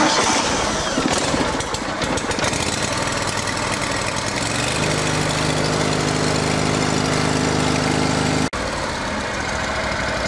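Riding mower's V-twin engine starts up and runs, settling about halfway through into a steady, even tone. It is running for a stator output test on a newly fitted stator.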